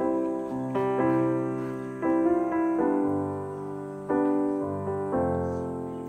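Background piano music: gentle chords struck about once a second and left to fade.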